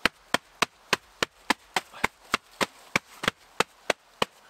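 A steady run of sharp knocks, about three and a half a second, evenly spaced throughout.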